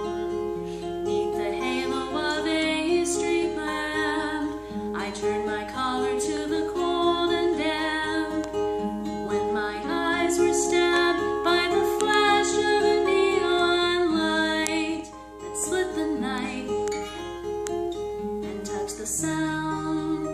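A singer with strummed acoustic guitar performing a slow song, with a brief pause about three-quarters of the way through.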